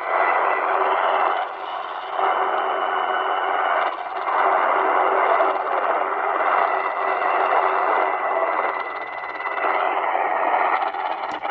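The Chinese Firedrake jammer on 9970 kHz, received on an XHDATA D-219 shortwave radio and heard through its speaker: a harsh wash of noisy, distorted signal with steady whistling tones, swelling and dipping in strength a few times. There are two sharp clicks at the very end.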